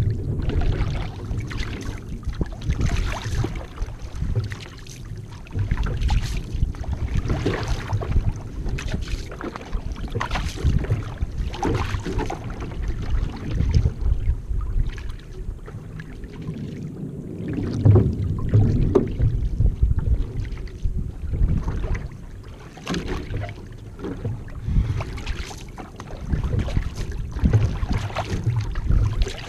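Paddle strokes splashing into the water about once a second as an outrigger canoe is paddled, with water washing along the hull. Wind buffets the microphone throughout.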